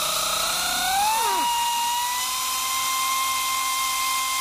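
Pneumatic air ratchet running, its whine rising in pitch over about the first second and then holding steady, as it backs out a 10 mm exhaust valve cover bolt on a Polaris 600 CFI snowmobile engine.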